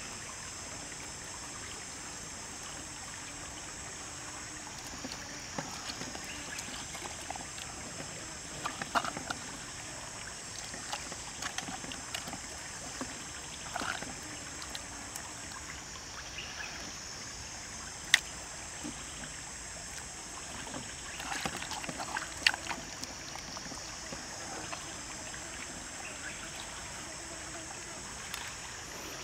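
Steady high-pitched insect chorus that breaks off and starts again every several seconds, with scattered soft clicks, squelches and rustles of hands pushing a seasoned raw whole chicken into a clay pot. One sharp click stands out about two-thirds of the way through.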